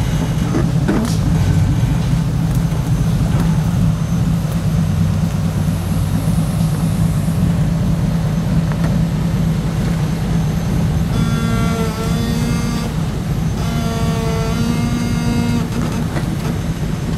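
Rock-crawler buggy's engine running steadily as it crawls slowly over rocks and roots, with no big revs.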